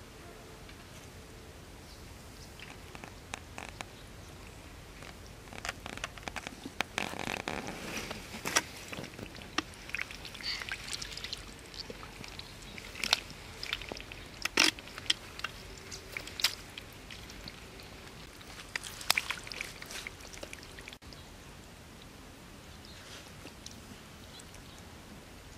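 Hands digging and squelching through wet mud: irregular wet smacks and small clicks over a faint steady hiss, busiest in the middle and dying away after about twenty seconds.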